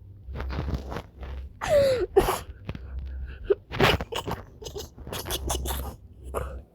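A person wheezing with helpless laughter: a string of breathy, gasping bursts, with a couple of high squeaky squeals that fall in pitch about two seconds in.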